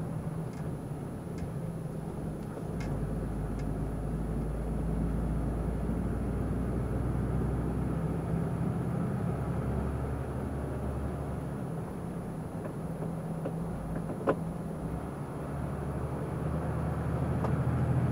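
Truck's diesel engine running while driving, heard from inside the cab as a steady low hum. A deeper rumble comes in about three seconds in and fades away about twelve seconds in, and there is a single click about fourteen seconds in.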